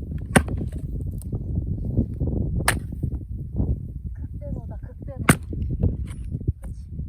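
A 5 kg axe striking firewood three times, sharp cracking blows about two and a half seconds apart.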